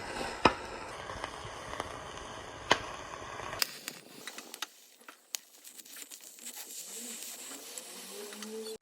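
Indian borage, betel, tulsi and black pepper leaves with garlic cloves crackling faintly as they warm in a kadai, with a few sharp clicks. The crackle is quieter and sparser from about halfway through.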